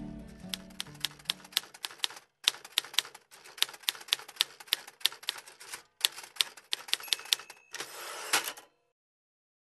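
Manual typewriter keys striking in quick irregular runs with short pauses, as text is typed out. Near the end comes a short ring, then a brief rattle of the carriage being returned, ending in a loud clack.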